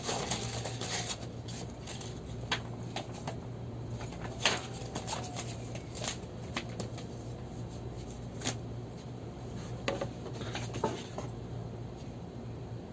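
Paperwork and packaging from a humidifier box being handled: scattered light taps, clicks and rustles, a few sharper ones, over a steady low hum.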